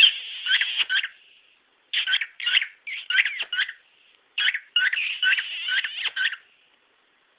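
Cockatiel chattering and whistling in four bursts of quick, high, gliding chirps, the last and longest ending a little over a second before the end.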